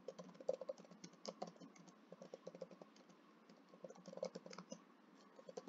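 Faint typing on a computer keyboard: quick runs of keystrokes, with a short pause about three seconds in.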